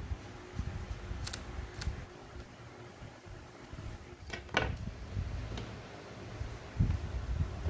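Handling noise from a cassette radio being worked on: low knocks and rubbing of its plastic case and metal deck chassis under the hands, with four sharp clicks (two in the first two seconds, a close pair about halfway) and heavier bumps near the end as the set is turned around.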